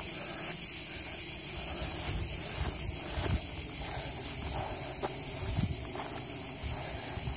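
Insects chirring steadily in summer grass, a dense high-pitched chorus that does not pause. Under it is an irregular low rumble.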